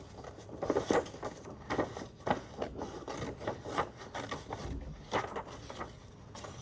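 Scissors cutting paper: a string of irregular snips as the blades open and close along a drawn outline.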